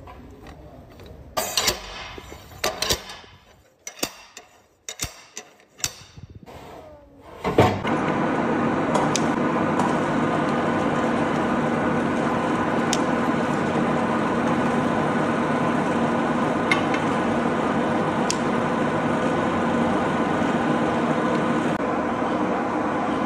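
Metal tools clicking, knocking and scraping on steel bearing parts in short bursts. About eight seconds in, a loud steady machine hum with a few light ticks takes over and runs on.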